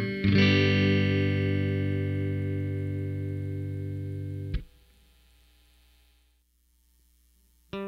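Clean electric guitar (a Squier Bullet Telecaster with Fender Tex-Mex pickups, both pickups on, through a SansAmp GT2 amp emulator): one chord is struck and left ringing and fading, then choked off with a click about four and a half seconds in. A faint hum follows, and playing starts again near the end.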